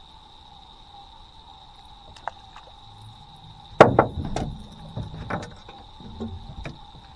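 A loud knock on a boat about four seconds in, followed by a string of further knocks and clicks as an angler moves about the deck and takes a rod from its holder. A steady high-pitched tone hangs underneath.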